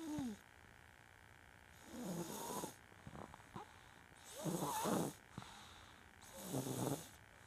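Loud snoring: three snores about two seconds apart, each lasting under a second, with a few faint clicks between them.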